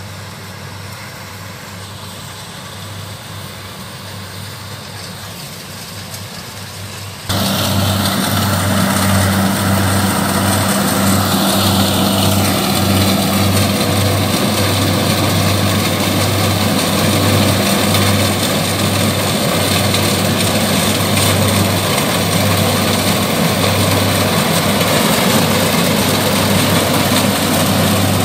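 Kubota DC70 rice combine harvester running as it cuts and threshes rice, a steady diesel engine hum with the rattle of the machinery. Faint at first, it turns suddenly much louder about seven seconds in, and a few seconds later a high whine drops in pitch.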